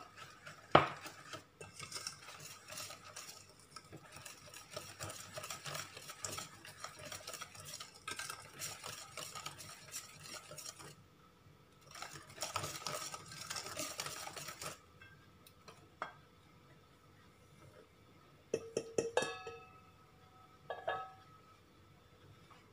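Wire whisk beating pancake batter in a stainless steel bowl: rapid scraping and rattling against the metal in two long stretches with a short pause between. A sharp knock about a second in is the loudest sound, and a few ringing metal clinks come near the end.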